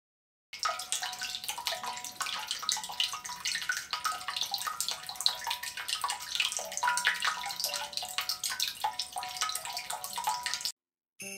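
Water trickling and splashing, with a dense patter of small drops that give short ringing plinks. It starts about half a second in and cuts off abruptly near the end.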